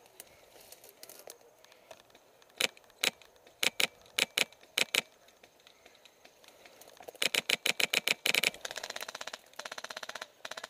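Airsoft rifle fire: a string of single sharp shots, then a quicker run of shots, then a fast full-auto burst of about two seconds near the end.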